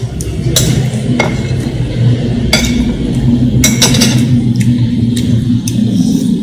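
A metal spoon and fork clink against ceramic plates and bowls while eating, a string of sharp separate clicks. Under them runs a steady low hum that stops near the end.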